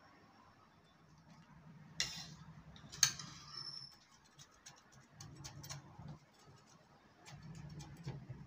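A knife cutting through a crisp-baked cheese naan on a plate: two sharp clicks about two and three seconds in, then a run of light crackling ticks as the blade goes through the crust, over a faint low hum.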